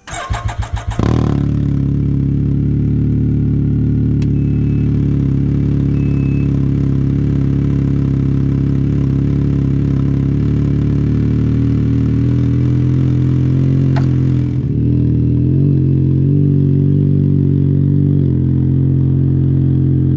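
The 2022 Can-Am Ryker 900's Rotax three-cylinder engine cranks for about a second and catches, then runs at a steady idle through a Silber Turbo exhaust with its baffle removed. The note changes slightly about fourteen seconds in, and by the end the trike is moving off.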